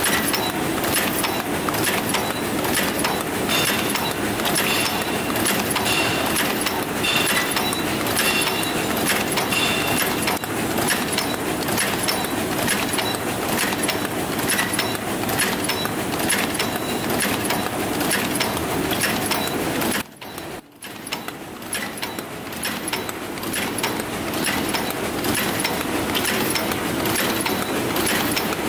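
Dakiou paper cup forming machine with gearbox drive running at production speed: a continuous fast clatter of clicks and knocks from its indexing turntables and forming stations. The sound breaks off for about a second about twenty seconds in, then resumes.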